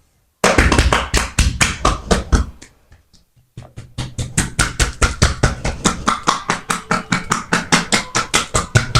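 A barber's hands striking the body in rapid percussive massage strokes at about five a second, with a brief pause about three seconds in before the beating resumes.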